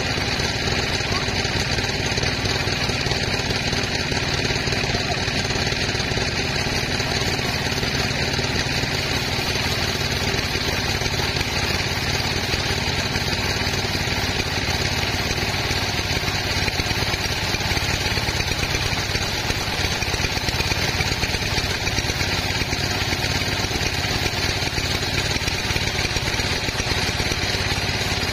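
Sawmill machinery running steadily with an even, engine-like drone.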